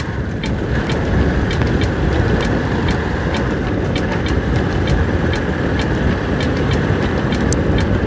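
Motorcycle riding at a steady cruise: engine and road rumble with wind on the microphone, broken by many small sharp ticks.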